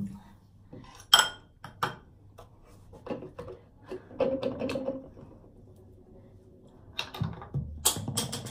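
Scattered clinks and knocks of kitchenware being handled while making slime: a couple of sharp ones about a second in, a busier stretch around four to five seconds, and another cluster near the end.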